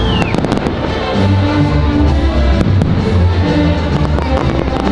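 Orchestral holiday show music with held string and brass notes, and a quick cluster of sharp firework cracks about half a second in.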